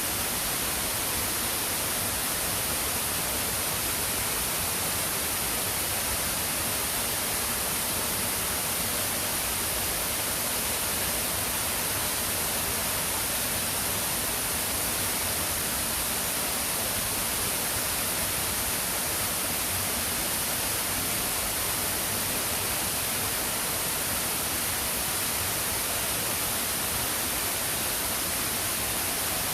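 Waterfall water rushing in a steady, unbroken hiss.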